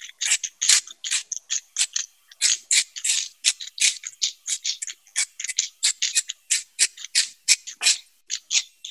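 Hand pepper mill being twisted, grinding in a quick series of short gritty crunches, about three a second.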